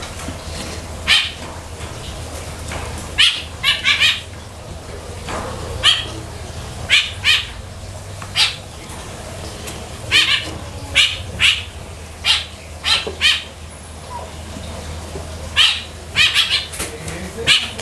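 A rooster pecking at the ground, its beak giving short sharp taps at irregular intervals, some in quick runs of two or three, over a steady low hum.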